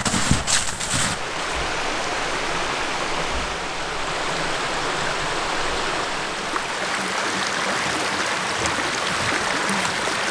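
Steady rushing of a stream, with a few footsteps in the first second.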